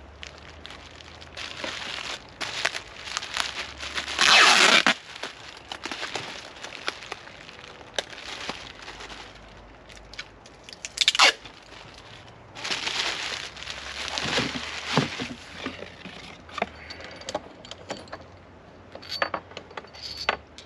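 Packaging being handled and torn open: irregular crinkling, rustling and tearing, with a louder rip about four seconds in, another sharp one about eleven seconds in, and scattered small clicks and taps.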